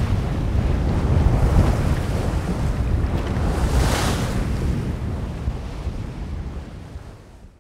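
Wind buffeting the microphone and sea waves washing past a yacht at sea, with a louder hissing rush of water about four seconds in. The sound fades away near the end.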